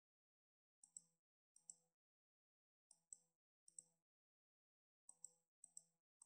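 Faint, sharp computer clicks, each a quick press-and-release, coming in loose pairs about every second, as spins of an online slot game are triggered. Nothing else is heard between them.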